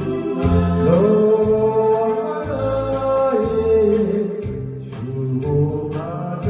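A Korean popular song: a singer holds long notes that slide in pitch over an accompaniment with a steady bass beat.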